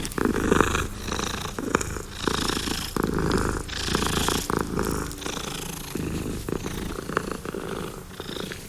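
Domestic cat purring close up, the purr swelling and easing in a steady rhythm of about one cycle a second as the cat breathes in and out.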